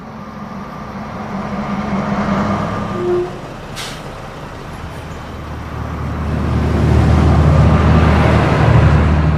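City bus engine running as the bus pulls in and drives past, growing louder near the end, with a brief hiss about four seconds in.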